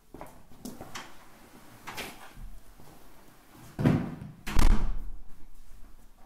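A few light knocks, then two heavy thumps about four seconds in, the second the loudest.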